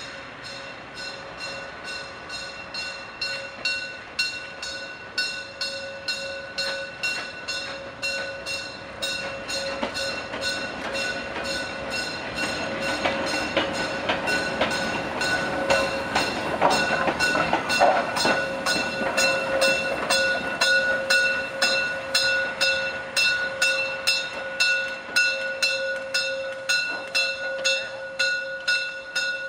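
Class 50 steam locomotive 50 2988 running slowly past, with a regular beat of exhaust chuffs about one and a half a second, loudest about halfway through as it comes closest. A steady high tone sounds over the beat.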